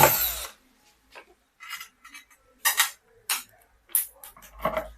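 A power screwdriver driving a screw whirs to a stop about half a second in. Scattered light metallic clicks and clinks follow as screws and the driver bit are set against the home theatre's casing.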